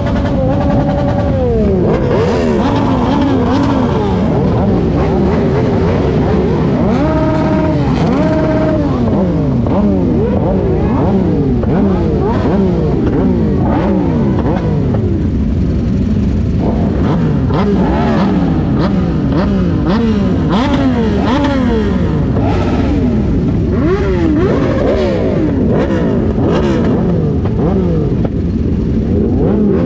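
A crowd of sport motorcycle engines running at idle, with several riders blipping their throttles over and over. Many overlapping revs rise and fall at different pitches throughout.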